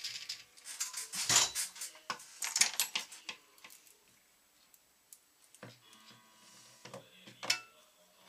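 Clicks, taps and rustles of small tools and tying materials being handled at a fly-tying vise. Busy for the first three seconds or so, then a few scattered clicks with one sharp click near the end.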